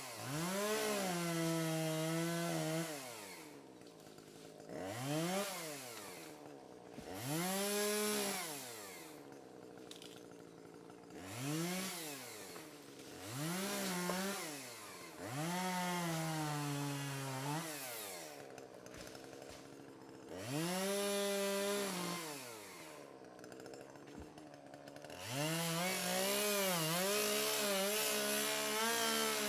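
Chainsaw engine revved again and again: short blips up and back down to idle, then longer runs held at high revs with a wavering pitch, the longest near the end.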